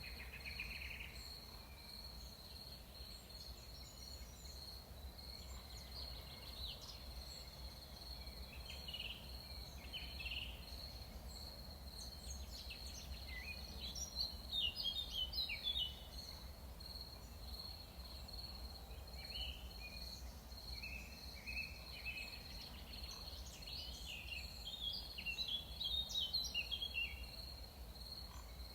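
Jungle ambience: a steady high insect drone with birds calling over it, including runs of quick descending notes about halfway through and again near the end, over a steady low rumble.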